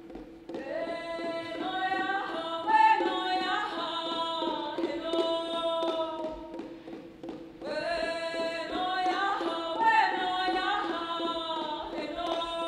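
A solo woman's voice singing unaccompanied-style phrases: two long sung lines, the second beginning about halfway through, over a steady low drone note and soft, evenly spaced percussion taps.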